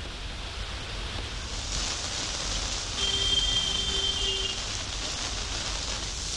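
Heavy monsoon rain falling steadily as a continuous hiss. About three seconds in, a steady tone sounds for about a second and a half over it.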